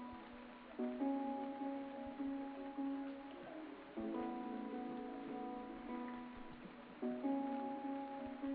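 Background instrumental music: gentle plucked-string chords, changing about every three seconds.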